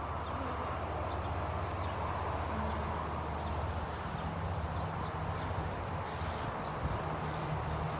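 Honeybees buzzing around an opened hive: a steady low hum, with faint ticks of frames being handled.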